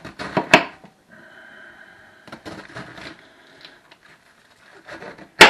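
Knife cutting a head of green cabbage into wedges on a cutting board: crisp cuts and taps of the blade on the board, a few in the first second and more a couple of seconds in, then one sharp knock just before the end, the loudest of them.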